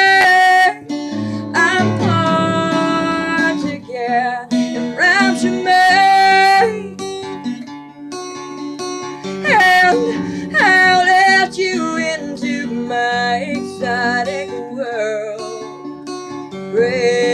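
Song with acoustic guitar accompaniment and a singing voice holding long notes that waver in pitch.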